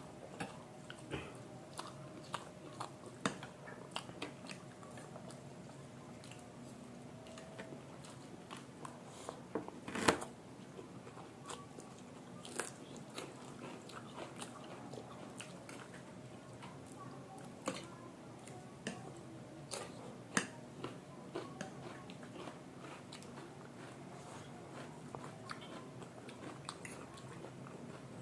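Close-miked eating of chow mein and momos: chewing and biting with many small wet clicks and crunches, and one louder clack about ten seconds in.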